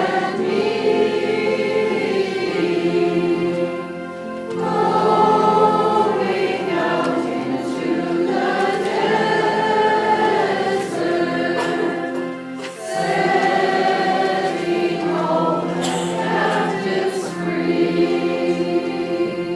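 Church choir singing a hymn in long, held phrases, with brief breaks between phrases about four and thirteen seconds in.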